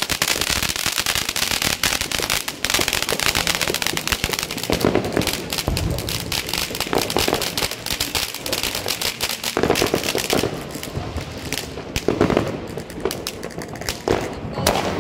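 Many fireworks and firecrackers going off at once: a dense, continuous crackle of rapid bangs, thinning out a little near the end.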